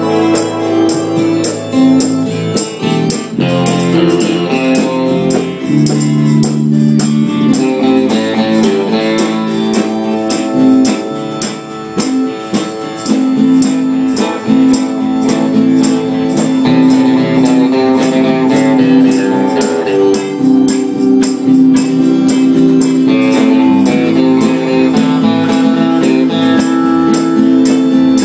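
Live acoustic guitar music from a small band, guitars played over a steady beat.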